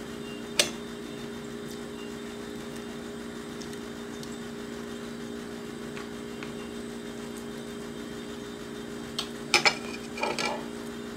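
A steady low hum throughout, with a metal fork clinking against a ceramic plate: once about half a second in, then a short run of clinks near the end.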